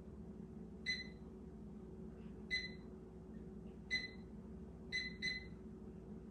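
Electronic keypad beeps from the over-the-range microwave's control panel as buttons are pressed to set a 25-minute timer: five short, identical high beeps, irregularly spaced, two of them in quick succession near the end, over a steady low hum.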